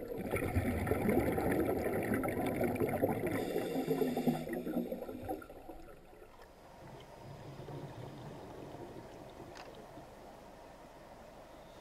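Underwater gurgling and bubbling picked up by a camera in its underwater housing, fading away about six seconds in to a faint hiss.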